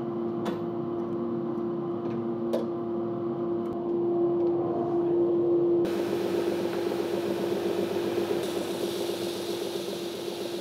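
Oscillating edge sander motor running with a steady hum, with two short clicks in the first few seconds. About halfway in a hissing, rasping noise sets in suddenly over the hum: wood being sanded against the abrasive belt.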